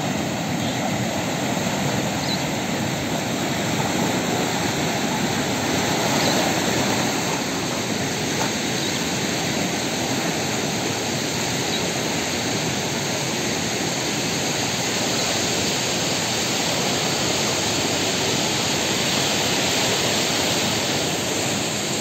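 Fast, turbulent river water rushing and churning in whitewater: a steady, even rushing noise.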